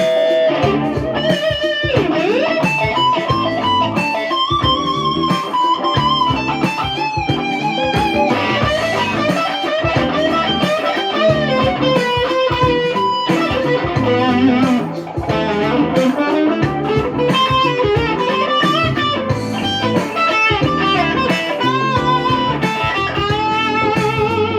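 Electric guitar played through a tube amplifier: a lead line of single notes with string bends and vibrato. This is a sound check of the amp after its power tubes were replaced.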